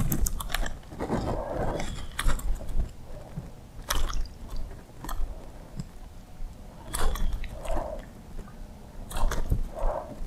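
Artificial fishing lure being twitched and reeled back across calm water, giving short splashy clicks at irregular intervals about a second apart over a faint steady background.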